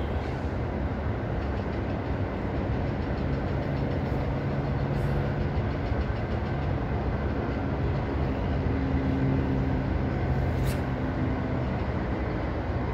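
Steady low rumbling background noise, with a brief sharp snap near the end.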